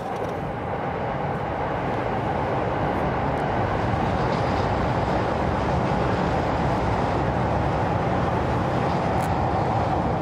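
Electric commuter train running past on an elevated concrete viaduct: wheels rumbling on the rails, building over the first couple of seconds and then holding steady.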